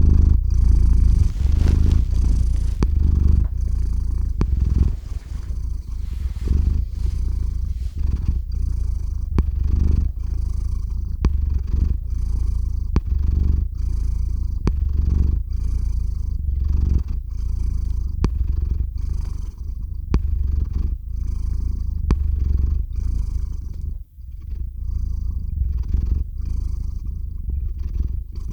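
Domestic cat purring right against the microphone, deep and steady, swelling and easing about once a second with its breathing; it breaks off briefly near the end.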